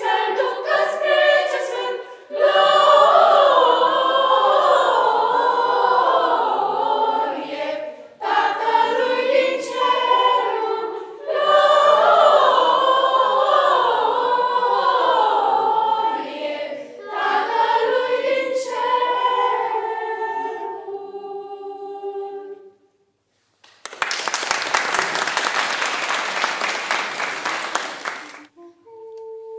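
Children's choir singing a Romanian Christmas carol (colindă) a cappella, in phrases with short breaks between, the song ending about 22 seconds in. After a second of silence comes applause for about four seconds, and a single steady hummed note starts at the very end.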